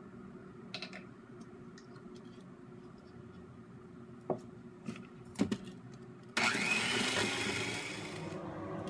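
A few light clicks and knocks, then about two-thirds of the way in an electric hand mixer switches on with a rising whine and beats the egg yolk batter, loudest for about two seconds before running on a little quieter.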